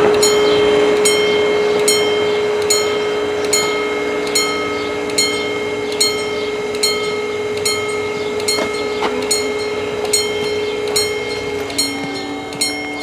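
Level-crossing warning bells striking a ringing ding about every 0.8 s, over the steady hum of the barrier motors lowering the arms. The hum stops about a second before the end, as the barriers close fully.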